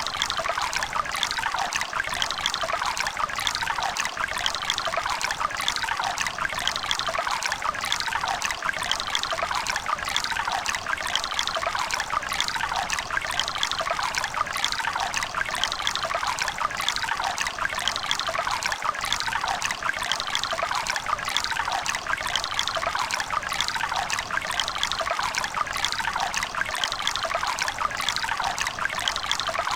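River water running and babbling over stones, a steady, unbroken splashing with its sound sitting mostly in the mid and upper range.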